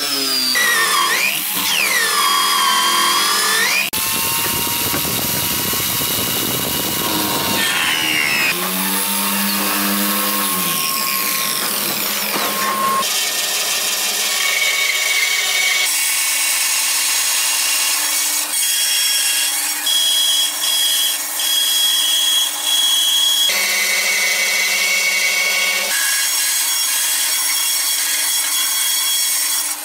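Electric drill in a homemade wooden drill-press stand boring into wood with a hole saw, its motor pitch sagging and rising as the cut loads it. From about the middle on, a band saw runs steadily and cuts through a block of wood, in several short edited stretches.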